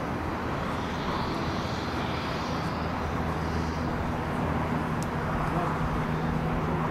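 Antonov An-70 in flight, its four propfan engines with counter-rotating propellers running: a steady rushing noise with a low, even hum that grows stronger about halfway through.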